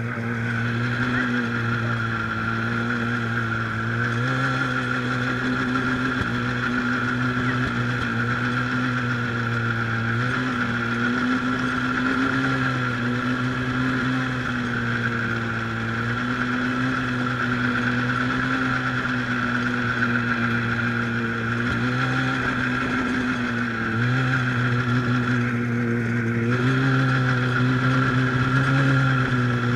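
Snowmobile engine running under way, its note stepping up and down a little with the throttle every few seconds, with a steady high whine over it.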